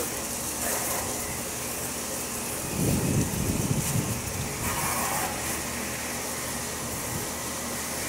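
Garden hose spray nozzle on full pressure, a steady hiss of water washing through the outdoor AC condenser's coil fins to clear out the gunk. A brief low rumble comes about three seconds in.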